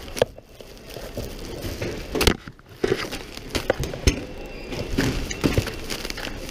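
Footsteps on a hard tiled floor, mixed with knocks and bumps from a swinging hand-held camera: irregular sharp knocks over a steady background hum, the loudest about two seconds in and about four seconds in.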